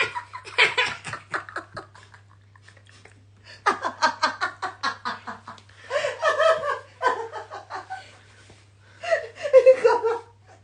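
People laughing: four rounds of quick, repeated ha-ha laughter with short pauses between them.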